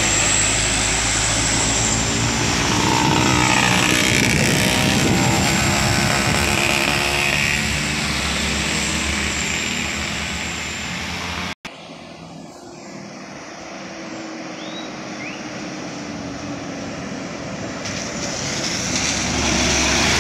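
Diesel trucks passing close by. A box truck's engine runs loud for the first half, then cuts off suddenly. After a quieter stretch, a heavy tanker truck's diesel engine grows louder as it approaches near the end.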